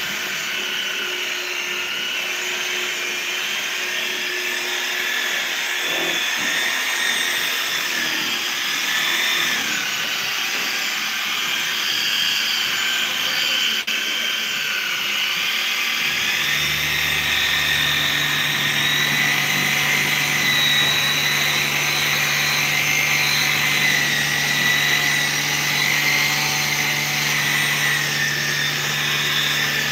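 Handheld electric rotary polisher with a foam pad buffing a car headlight lens, its motor whining steadily with the pitch wavering up and down as it is pressed and moved. About halfway through, a low steady hum joins.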